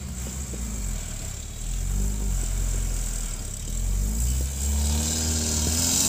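UAZ Patriot SUV's engine revving under heavy load as it tries to climb out of a stream onto a steep bank, its wheels spinning in the water. The engine note swells twice, about two seconds in and again near the end, when a hissing rush of water spray from the spinning rear wheel joins it.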